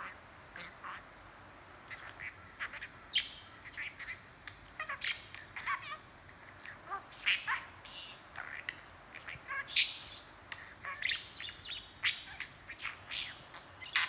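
Budgerigar chattering: a steady, irregular stream of short chirps, squeaks and warbles, with a louder, sharper chirp about ten seconds in.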